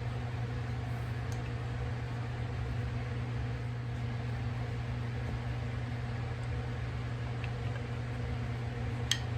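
Steady low electrical or mechanical hum, like a running fan or motor, with a few faint clicks and one sharper click near the end.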